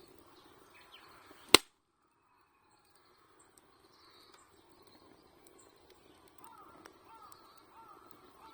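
Birds calling over a faintly crackling wood fire. A single loud sharp click comes about a second and a half in, followed by a couple of seconds of dead silence. From about six seconds on, one bird repeats short arched calls, about three a second.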